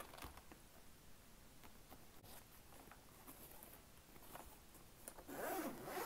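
Faint rubbing and handling of a zippered hard carrying case, then, about five seconds in, its zipper starts being pulled open with a louder rasping run.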